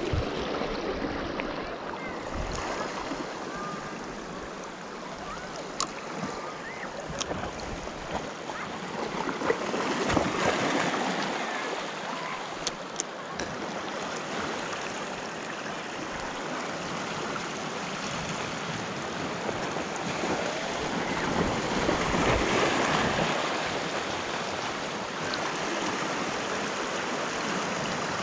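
Small sea waves washing and sloshing against a rock ledge, swelling about ten seconds in and again a little past twenty seconds. A few sharp clicks stand out.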